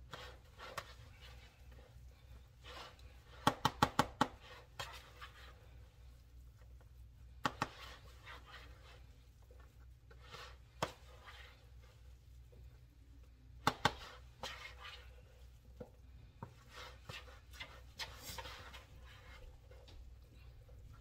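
A spoon clinking and scraping against a mixing bowl while mashing wet bread stuffing, with a quick run of about five clinks three and a half seconds in and single clinks scattered after. A steady low hum runs underneath.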